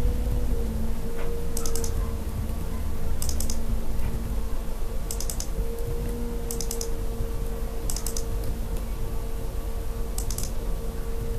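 Computer keyboard keystrokes in short quick bursts of three or four clicks, one burst every second or two, while code is edited. A steady low electrical hum runs underneath.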